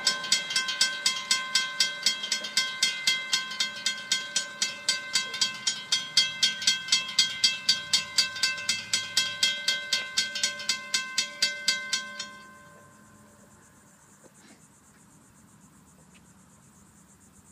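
Railroad grade-crossing warning bell ringing with evenly spaced strikes, about four a second, as the crossing gates come down for an approaching train. It stops suddenly about twelve seconds in, once the gates are down.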